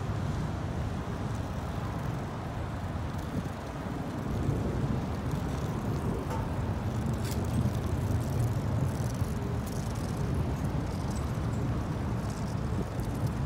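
Strong gusty storm wind buffeting the microphone: a steady low rumble that swells and eases, a little louder from about four seconds in.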